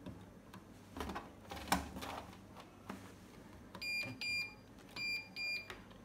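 Bosch Classixx 6 washing machine's control panel beeping as its option buttons are pressed: two pairs of short high beeps in the last couple of seconds, after a few faint clicks.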